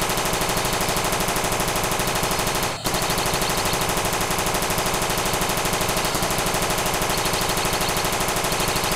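Machine-gun sound effect: rapid automatic fire at an even rate, with one brief break about three seconds in, cutting off sharply at the end.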